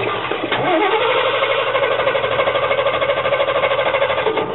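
The van's throttle-body-injected engine running with a steady, rapidly pulsing note. It sags and picks back up about half a second in. The engine is warm, the condition in which it keeps stalling.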